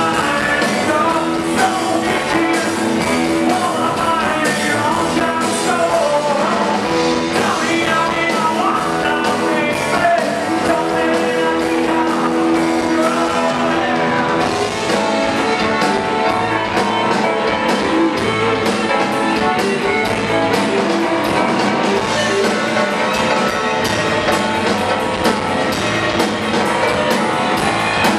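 Live rock band playing loudly: a man singing over electric guitar, bass guitar and drums.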